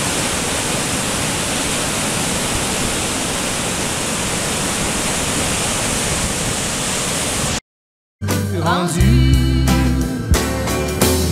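Steady rushing of whitewater pouring down a rocky waterfall, cutting off abruptly about seven and a half seconds in. After a brief silence, music with singing begins.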